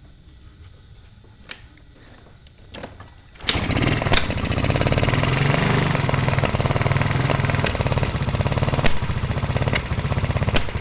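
Yamaha Mio Soul scooter's single-cylinder engine starts up about three and a half seconds in and runs with a fast, rapid firing beat and occasional louder pops. This is the coughing ('batuk-batuk') the owner has not yet traced, with smoke blowing back out of the carburetor.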